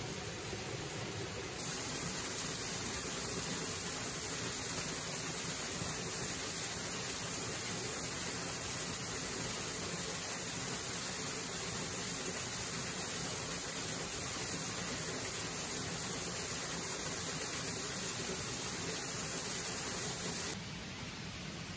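Small waterfall pouring onto rocks in a mountain stream: a steady rushing hiss, a little louder from about two seconds in until just before the end.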